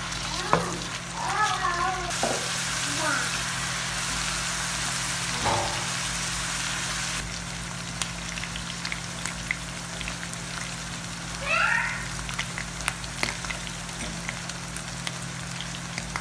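Minced meat (keema) frying with onions and spices in a non-stick pan, sizzling steadily, with scattered clicks and scrapes from the spatula stirring it.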